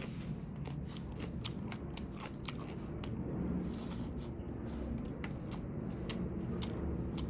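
Close-up eating sounds: a person chewing and biting food, with frequent short, sharp mouth clicks and crunches.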